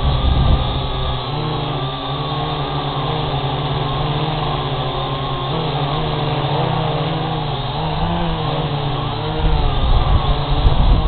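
Syma X8G quadcopter's motors and propellers whirring, several tones wavering up and down in pitch as the throttle changes. Heavier low rumbling joins in near the end.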